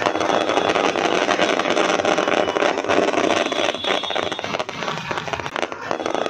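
Fireworks going off: a dense, continuous crackling from sparking fountains and aerial bursts, easing a little about five seconds in.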